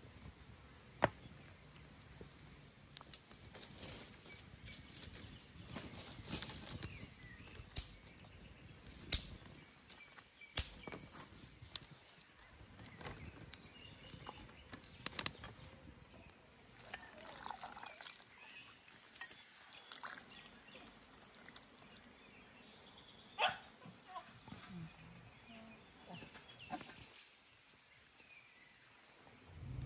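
Faint outdoor background with scattered sharp clinks and knocks of a large metal cooking tray and its metal lid being handled over a charcoal fire stand.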